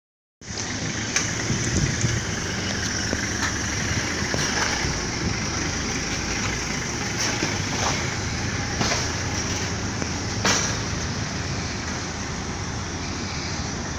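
A bus running at its stop with road traffic: a steady wash of engine and traffic noise, broken by a few sharp clicks. It cuts in abruptly just under half a second in.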